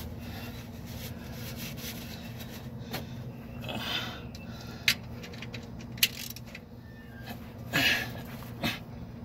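Hand work at a car's oil drain plug: a rag rubbing around the plug, then a few sharp metallic clicks as a ratchet is set on it, over a steady low hum.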